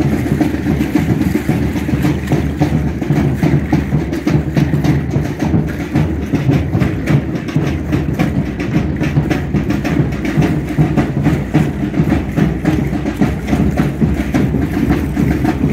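Aztec dance percussion: a driving drum rhythm mixed with the clatter of the dancers' ankle rattles, keeping up steadily and loudly.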